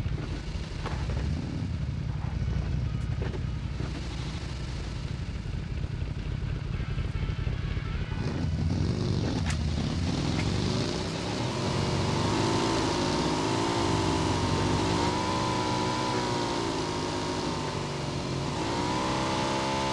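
Motor vehicle running with a steady low rumble; from about nine seconds in its pitch rises and falls repeatedly as it revs up and down.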